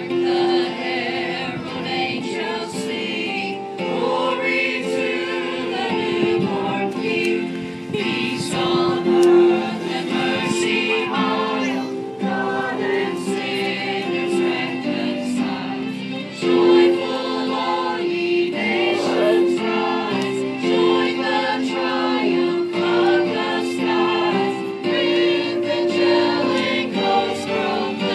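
A group of people singing a Christmas carol together, a sustained choral sound of many voices.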